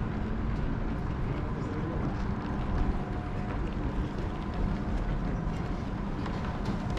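Steady outdoor city ambience with a constant low rumble and no single sound standing out.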